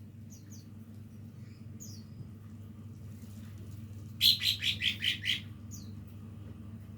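Young cucak ijo (green leafbird) practising its song: scattered short, high, downward-sliding chirps, then about four seconds in a loud quick run of about six notes. A steady low hum lies underneath.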